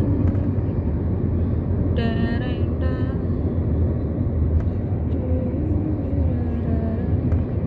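Steady low rumble of road and engine noise heard inside a moving car's cabin. Two short, high-pitched voice-like sounds come about two and three seconds in.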